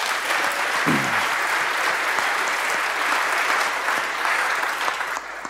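Audience applauding and welcoming the speaker to the stage, with one voice calling out briefly about a second in; the clapping dies away near the end.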